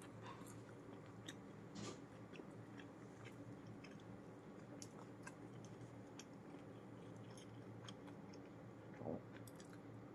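Faint chewing close to the microphone: scattered small crunches and mouth clicks, with a slightly louder bite near the end, over a steady low hum.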